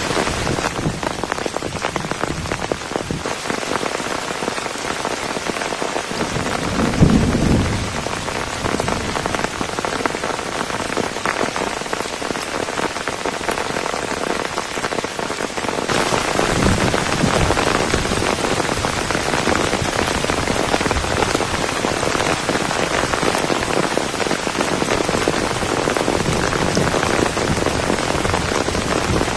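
Heavy downpour of rain, a dense steady hiss of drops. There is a brief low rumble about a quarter of the way in, and the rain grows louder a little past halfway.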